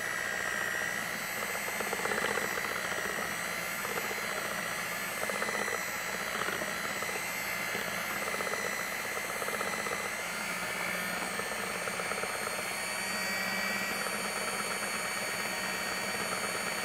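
Betty Crocker electric hand mixer running at a steady speed, its twin beaters whipping cream and sugar in a glass bowl: a steady motor whine.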